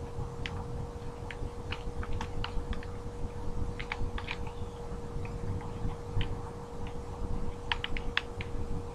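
Devil sticks being juggled: irregular light clacks, a few a second and sometimes in quick pairs, as the handsticks strike the centre stick. A steady faint hum runs underneath.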